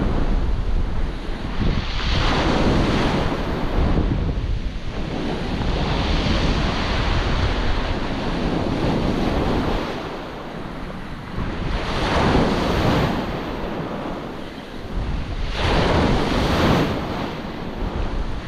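Small ocean waves breaking and washing up the beach at close range, swelling and easing every few seconds. Wind buffets the microphone with a low rumble underneath.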